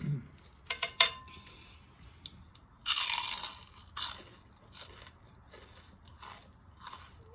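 Eating sounds from a spicy pounded cucumber salad (tam taeng) eaten by hand: crunchy bites and chewing of raw cucumber. The loudest crunch comes about three seconds in, with a second about a second later, among smaller clicks.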